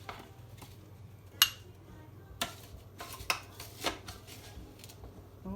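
Scattered sharp clinks and knocks of a utensil against kitchenware, about four louder ones spread out, as watermelon sorbet is scooped out of a food processor bowl.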